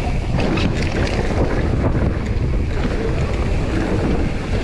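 Mountain bike rolling along a dirt trail, heard from a handlebar-mounted camera: wind buffeting the microphone over a steady rumble of tyres on the rough ground, with a few short rattles in the first second.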